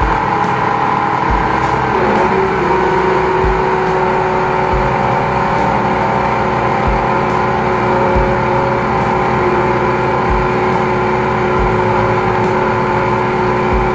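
High-pressure sewer jetter running steadily under load as its hose is fed into a clogged drain: an engine-driven pump running with a steady hum, a low thump every second or two, and a new steady tone coming in about two seconds in.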